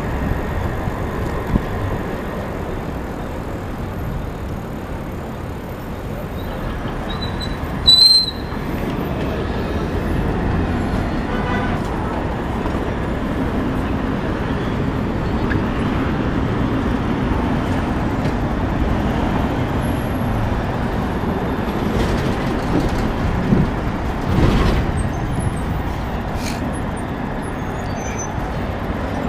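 City street traffic: a steady rush of passing cars, taxis and trucks, heard from a moving bicycle. A brief high-pitched squeal about eight seconds in is the loudest sound.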